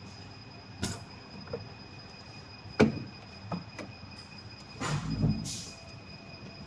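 Handling noises from work on a machine: a few sharp knocks and clicks, the loudest about three seconds in, and a brief rustle and clatter around five seconds, over a faint steady high whine.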